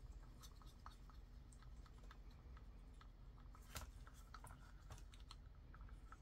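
Faint light clicks and scraping of a stir stick against a small plastic mixing cup as epoxy resin is stirred into colour drops, with one sharper click a little before four seconds in.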